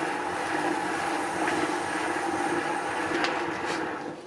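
Homemade mini lathe running: the DC motor and belt-and-pulley drive turn the spindle with a steady hum, while a paper towel rubs shellac onto the spinning wood. The sound drops away near the end.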